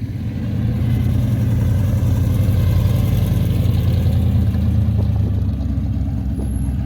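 Car engine running close by with a steady low note. It grows louder about a second in and eases a little near the end, as from a car moving slowly past.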